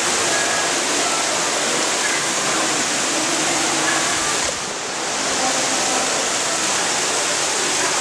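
Small rock waterfall splashing steadily down lava rocks into a pool, a continuous rushing of water that briefly dips and dulls about halfway through.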